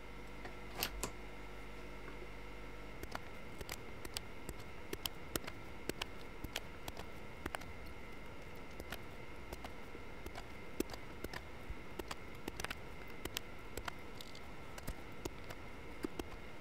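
Faint small clicks and crackles of manual desoldering, a soldering iron and a spring-loaded solder sucker working the joints of an IC socket on a circuit board, with a few sharper clicks among them.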